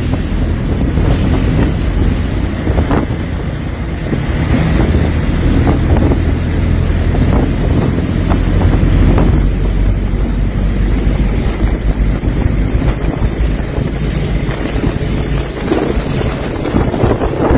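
Heavy low rumble of a moving vehicle on a wet road, with wind buffeting the microphone and occasional knocks.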